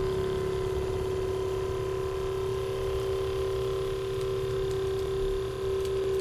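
A small electric motor humming steadily over a low rumble, its pitch shifting slightly about two and a half seconds in.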